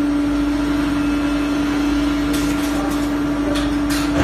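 Machinery of an MgO board production line running, a loud steady hum over a machine-noise haze. A few short knocks or clanks come in the second half.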